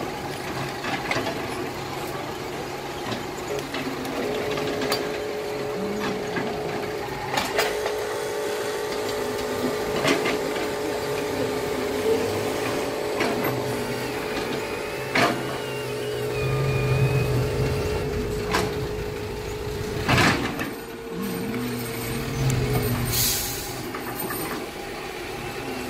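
Electric drive motors of radio-controlled toy trucks whining steadily as they work in mud, with scattered clicks and knocks from the gears and wheels, low rumbling stretches, and a short hiss near the end.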